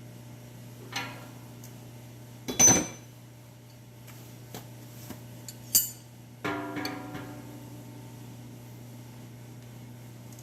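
Metal air-line fittings and tools being handled: a few separate sharp clinks and knocks, the loudest about two and a half and six seconds in, then a piece of metal struck and ringing briefly about six and a half seconds in. A steady low hum runs underneath.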